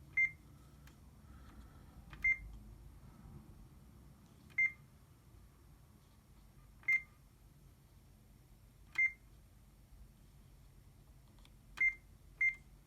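HP LaserJet 3330 control-panel keypad beeping at each button press: seven short, high single-tone beeps about two seconds apart, the last two in quick succession.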